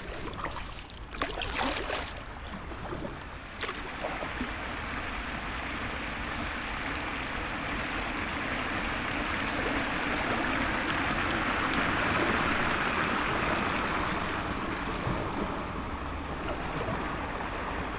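Steady rush of running water that builds to a peak and then eases off. A few knocks come in the first few seconds.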